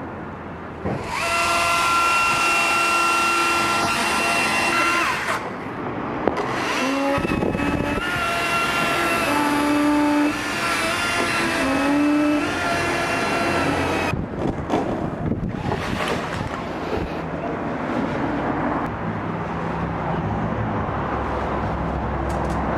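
Chainsaw running at full throttle for a few seconds, then cutting again, its pitch dipping and recovering under load until it stops about two-thirds of the way through.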